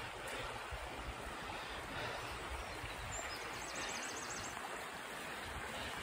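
Shallow river water flowing and rippling over stones, a steady rushing hiss.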